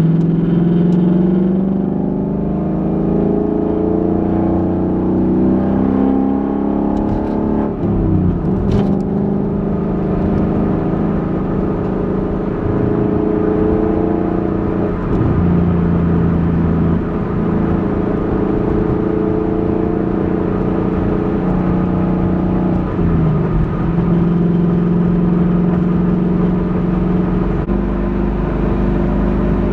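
2021 Ford Mustang GT's 5.0-litre V8 exhaust while driving, heard from inside the trunk. The engine note climbs near the start, then breaks and drops in pitch several times before settling back to a steady rumble.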